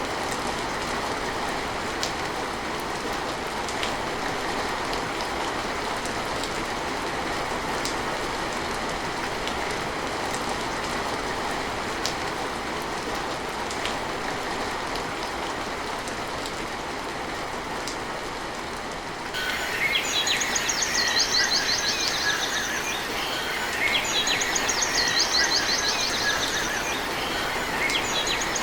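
Steady rain falling, an even hiss with the odd sharper drop. About two-thirds of the way in the sound changes abruptly and rapid trilling calls come in over the rain, three spells of a few seconds each.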